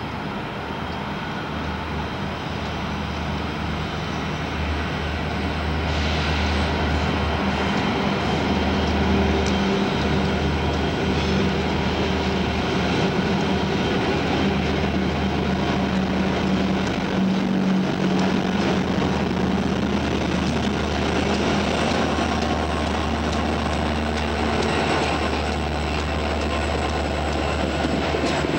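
Diesel-electric freight locomotives, Conrail and CSX units, passing close by with their engines droning. The sound grows louder over the first few seconds, then holds steady as the locomotives and train roll past.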